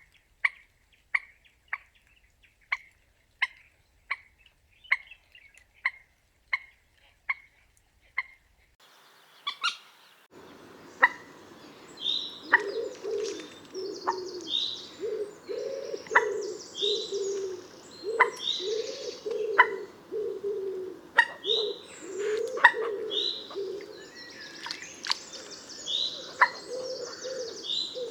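Common moorhen calling: a regular series of short, sharp calls about every 0.7 seconds. After a break, about ten seconds in, a busier recording starts, with repeated calls and higher chirps over a steady background chatter.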